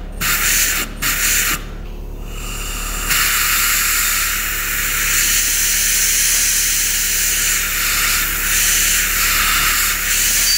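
Compressed air hissing from an air line: two short blasts, then, about three seconds in, a steady hiss that holds on.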